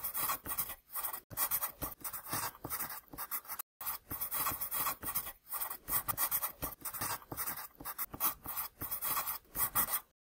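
Sound effect of a pen scribbling on paper: a quick run of short scratchy strokes, with a brief break about three and a half seconds in.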